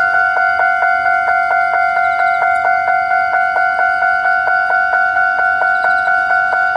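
Japanese railway level-crossing warning bell ringing its repeated 'kan-kan' strike at about three strikes a second, with no let-up. The crossing has been left ringing continuously by a fault from a lightning strike.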